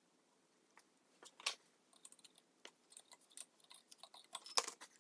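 Irregular sharp metallic clicks and taps of steel drill bits, used in place of a spanner wrench, shifting in the holes of a spanner nut and levered against each other to tighten the nut on a cast-iron drive gear. The loudest cluster of clicks comes near the end.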